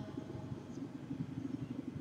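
A low, steady rumbling drone from the viral Hawaii recording of unexplained trumpet-like sounds in the sky, with a faint higher tone behind it.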